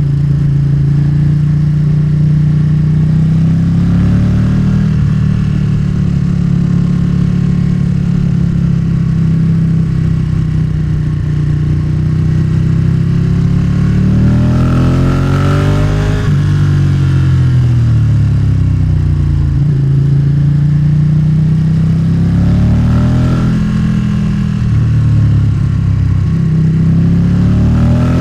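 Motorcycle engine pulling under way, its pitch climbing with the revs and then dropping sharply at each gear change, over a steady low rumble.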